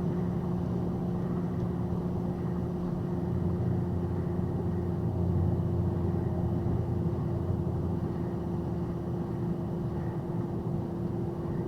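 Box truck's engine running steadily, heard from inside the cab: a continuous low drone with a steady hum.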